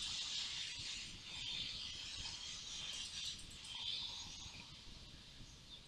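Faint chirping of birds in the background over a soft hiss, rising and falling in patches.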